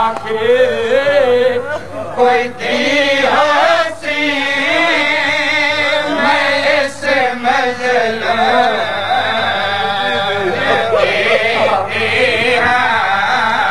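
A man chanting a lament in a drawn-out, wavering melody, with few breaks: a zakir's sung elegy for the martyrs of Karbala.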